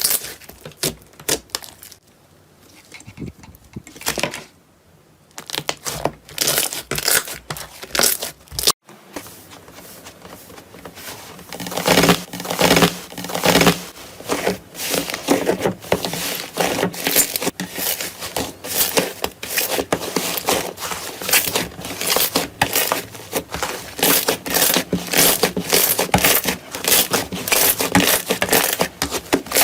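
Slime being squeezed and pressed by hand, giving a dense run of small crackling clicks and pops. It goes sparse and quieter for a few seconds near the start, then breaks off abruptly at about nine seconds before a denser, louder stretch of crackling.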